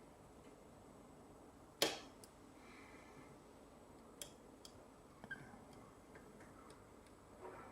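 Faint, scattered metallic clicks and ticks of a lock pick working the pins of a six-pin Euro cylinder under tension, with one sharper click about two seconds in.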